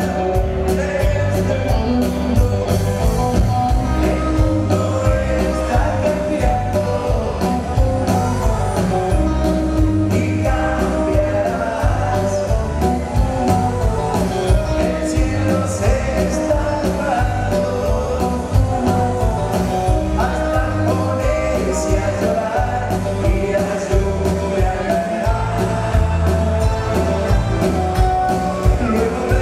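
Live band playing a song: electric bass, keyboard and drums with a steady beat under a male lead vocal.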